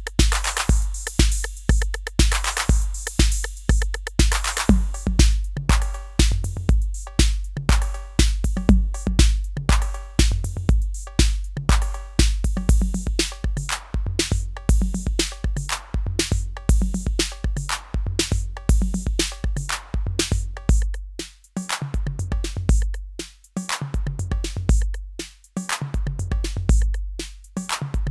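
Yocto TR-808 clone analog drum machine playing a rhythmic pattern: a deep, booming bass drum on a steady beat, with hi-hat and cymbal hits that are dense in the first few seconds, then sparser pitched percussion in the middle range.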